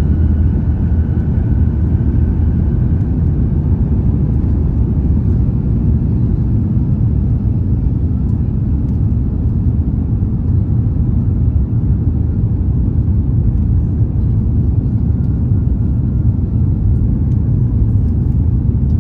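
Cabin noise of an Airbus A350-900 in its initial climb after takeoff. The Rolls-Royce Trent XWB engines at climb thrust and the rushing airflow make a steady deep rumble, with a faint high whine that fades and returns.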